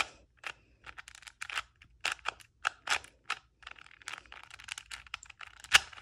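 Plastic Rubik's Cube being turned quickly by hand: an irregular run of clicking layer turns, with one louder clack near the end.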